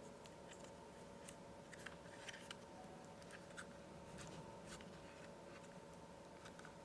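Faint, scattered small clicks and rubbing as a laptop SSD is handled and its side sleeves are fitted back on, over a faint steady hum.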